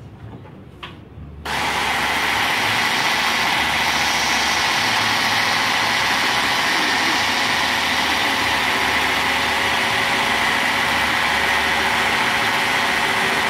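Electric immersion (stick) blender switched on about a second and a half in, then running steadily at one speed while blending in a tall cup.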